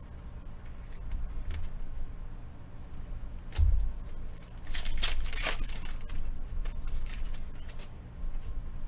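Trading cards and packs being handled on a table: a sharp knock about three and a half seconds in, then cards sliding and rustling, with a few light taps.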